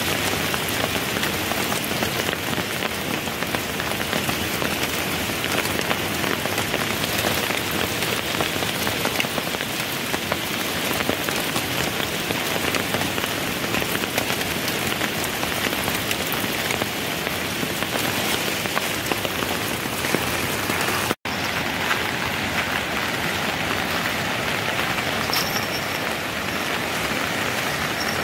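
Steady rain falling close by, a dense patter of drops. After a brief break about three-quarters through, the rain goes on together with the rush of a swollen, muddy river.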